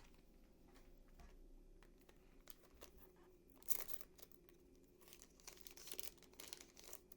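Plastic trading-card pack wrapper being crinkled and torn open by hand, faint, with a louder crackle about three and a half seconds in and a run of crinkles near the end.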